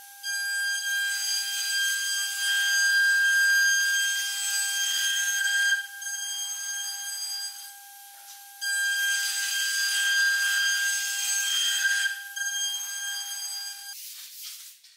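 CNC router spindle whining at a steady high pitch, with two long stretches of louder noise as the bit cuts into the wood. The spindle stops shortly before the end, leaving light rustling.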